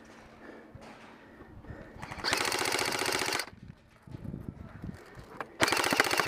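Airsoft rifle firing on full auto: two bursts of rapid, evenly spaced shots, each about a second long, the second starting near the end.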